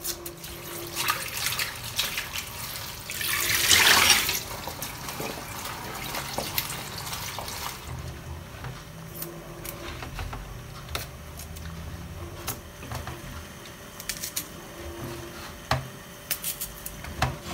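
Kitchen tap water running briefly about three seconds in, then faint clicks and rustles as red chilies and shallots are handled and trimmed with a small knife over a plastic bowl at a stainless-steel sink.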